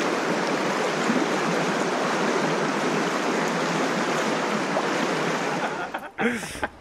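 River water rushing steadily over a shallow riffle, an even hiss of current that cuts off abruptly about six seconds in, followed by a brief fragment of a man's voice.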